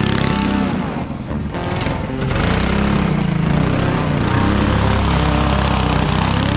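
Predator 212 single-cylinder go-kart engine running under throttle. It eases off about a second in, then picks back up and runs steady.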